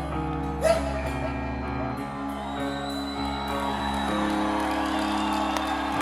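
Live rock band playing an instrumental passage with sustained guitar chords. A short, sharp loud accent comes a little under a second in.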